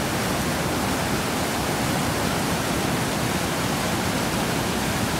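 Whitewater rapids pouring over and around granite boulders in a mountain river: a steady, unbroken rush of water.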